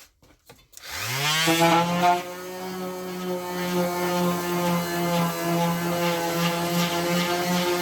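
A few faint clicks, then an orbital sander switched on about a second in, its motor rising quickly to speed and then running steadily with a steady hum.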